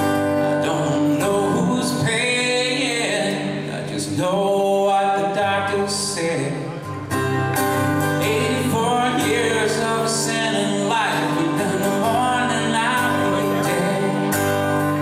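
A man singing with acoustic guitar accompaniment.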